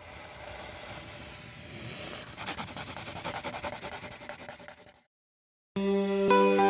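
Pencil-on-paper sketching sound effect: a soft rubbing hiss, then from about two seconds in a run of rapid scratching strokes that stop about five seconds in. After a short silence, guitar music begins near the end.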